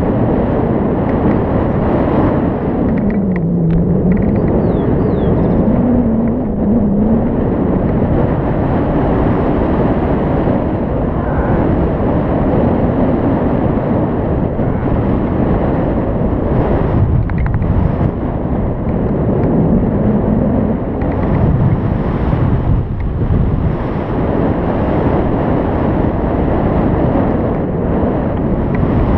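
Wind rushing over the microphone in paragliding flight: a loud, steady rumble with a faint low pitch that drifts up and down.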